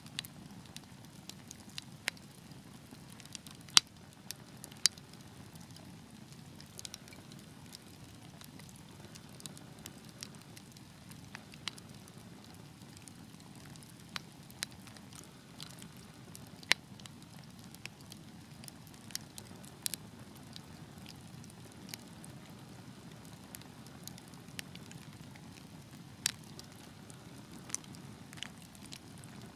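Wood fire burning with a low steady rush of flames and irregular sharp crackles, a few of them loud pops.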